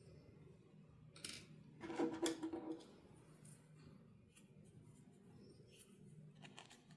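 Handling of toy packaging during an unboxing: a brief rustle about a second in, then a louder scrape with a short squeak about two seconds in, followed by faint light clicks.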